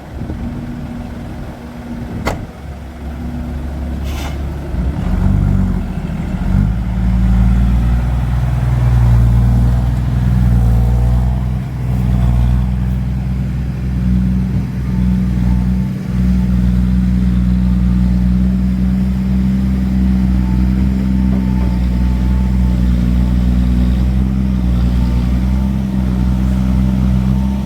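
Heavy diesel truck engine running, growing louder over the first six or seven seconds and then holding a steady, loud drone.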